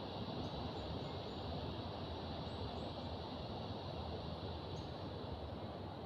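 Forest ambience: a steady, even rushing noise with a few faint, short, high bird chirps scattered through it.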